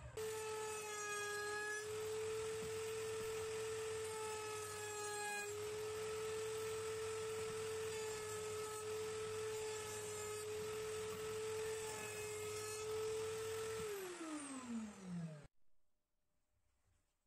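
Router in a router table running at high speed, a steady high whine with several stretches of extra cutting noise as a pine board is fed past the bit. Near the end it is switched off and the whine falls in pitch as the motor spins down.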